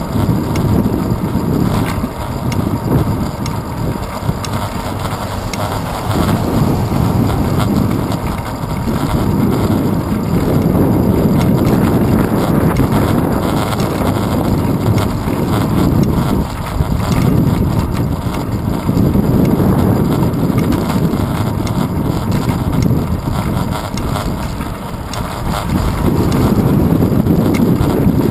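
Wind buffeting the microphone of a camera on a moving bicycle's handlebars: a loud, low rumbling noise that swells and eases in gusts.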